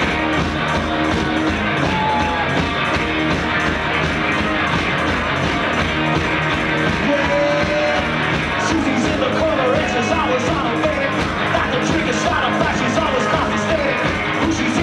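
Live garage rock played loud: electric guitars over drums keeping a fast, steady beat.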